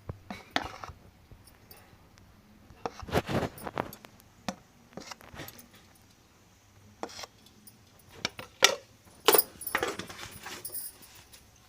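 Metal kitchen utensils and pots clinking and clattering in irregular bursts, busiest about three seconds in and again from about eight seconds in.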